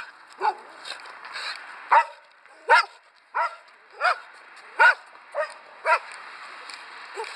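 German shepherd guard dog barking repeatedly behind a fence, about eight barks at roughly one every 0.7 seconds.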